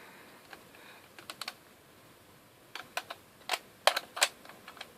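Scattered sharp plastic clicks and taps from hands handling equipment, a few close together about a second in, then a more irregular run of clicks in the second half.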